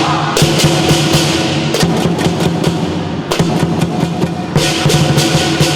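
Southern lion dance percussion, loud: a large lion dance drum beaten steadily while hand cymbals clash again and again and a gong rings.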